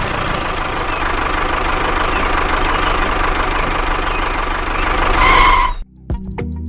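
Small engine of a miniature DIY tractor running steadily, swelling briefly and then cutting off abruptly about six seconds in, where background music with a steady beat takes over.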